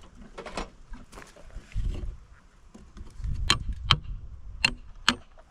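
A few sharp clicks and knocks over a low rumble; no saw is running.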